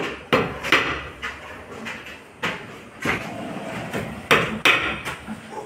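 Hammer knocking on wooden planks, a string of sharp, irregular strikes about one every half second.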